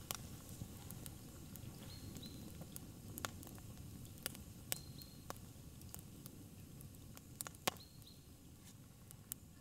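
Wood fire burning: irregular sharp pops and snaps over a soft low rumble of flame, with a few brief high thin whistles among the pops.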